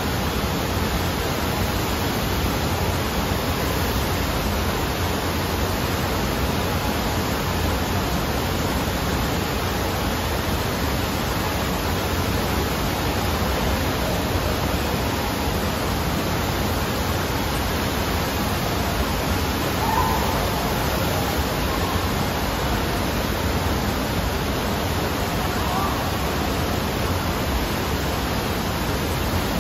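Indoor surf simulator's artificial wave: a sheet of pumped water rushing steadily over the ride surface, a constant even rush with no change in level.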